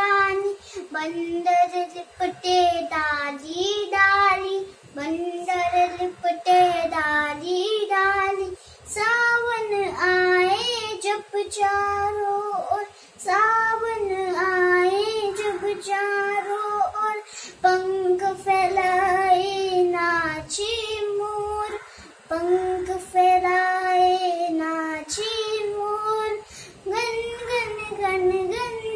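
A young girl singing a Hindi children's song unaccompanied, in phrases with short breaks between them.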